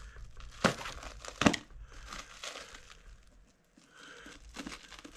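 Clear plastic stretch wrap crinkling and tearing as it is cut with a small blade and pulled by hand, with two sharp crackles in the first second and a half.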